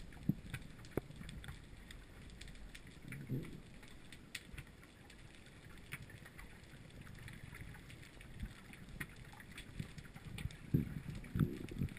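Underwater ambience heard from inside a sealed camera housing: a faint, muffled low rumble of water with scattered sharp clicks and a few soft low whooshes of water movement, which grow louder near the end.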